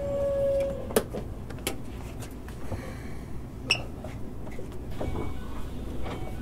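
Cabin sound of a Keikyu 600 series commuter train car: a steady low rumble, a steady tone that stops just under a second in, and a few sharp clicks and knocks, the loudest about a second in.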